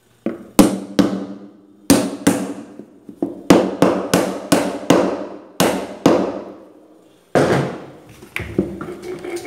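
Repeated sharp knocks, about fifteen in irregular clusters, each ringing briefly through the plastic body of an upturned semi-automatic washing machine. The pulley hub is being struck to knock loose the agitator, which is stuck tight.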